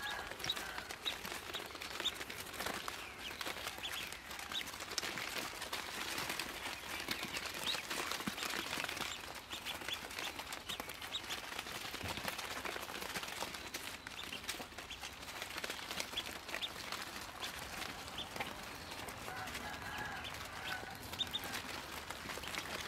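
A brood of Muscovy ducklings peeping, many short high chirps overlapping without a break.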